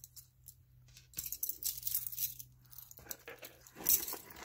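Loose metal costume jewelry jingling and clinking as it is handled and rummaged through in a pile, with a sharper clink about four seconds in.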